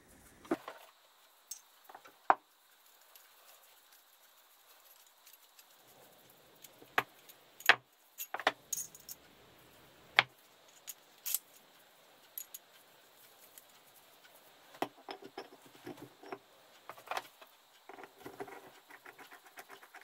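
Small steel pieces of a brake piston puller kit clinking and rattling as they are picked out, handled and fitted together. The clicks are irregular, with a few sharper knocks about 2, 8 and 10 seconds in and a busier patch of small clinks near the end.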